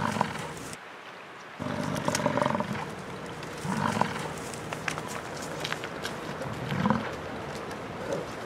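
American bison bull bellowing: several deep, rough roars a couple of seconds apart, the rut call of a bull bison.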